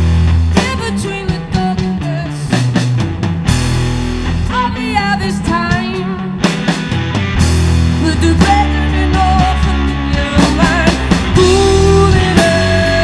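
Live rock band playing at full volume: a drum kit, electric guitars and bass guitar, with a pitched lead line sliding up and down over the top.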